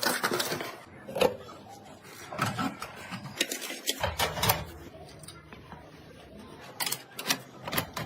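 Irregular clicks and knocks of computer parts being handled and fitted together, some close together and others spaced apart.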